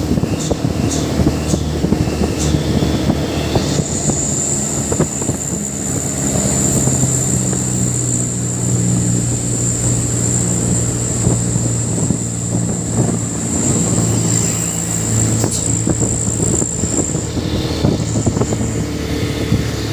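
Truck's diesel engine running steadily. A thin, high whistle joins about four seconds in and stops a few seconds before the end.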